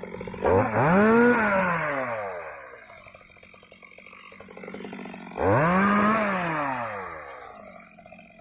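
Stihl MS 250 two-stroke chainsaw revved twice, each time rising quickly in pitch and then winding slowly back down to idle.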